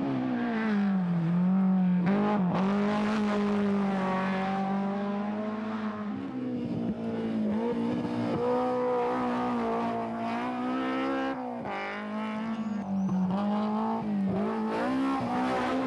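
BMW M3 E30 rally cars' four-cylinder engines revving hard at racing speed, one car after another. The pitch climbs and falls with gear changes and lifts for corners, with sharp breaks about two and a half, six and eleven and a half seconds in.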